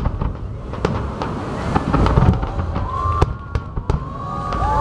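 Fireworks display: a rapid run of bangs and crackling pops from bursting shells over a low rumble, with several whistles joining in the second half.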